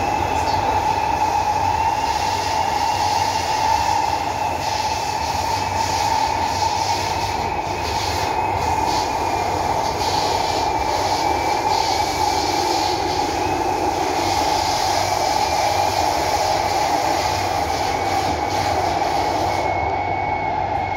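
Singapore MRT East-West Line train running underground, heard from inside the carriage: a steady rushing rumble with a faint high whine that wavers slightly in pitch.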